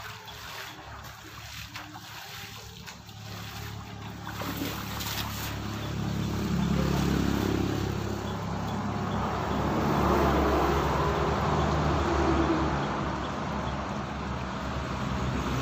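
Water sloshing and splashing as a man wades through a muddy, flooded channel while working a cast net. A low, steady rumble builds after about five seconds and stays.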